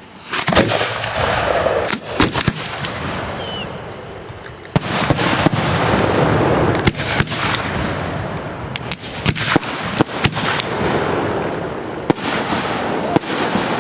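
Aerial fireworks shells bursting: a dozen or so sharp bangs, several in quick pairs, over continuous crackling from the burning stars.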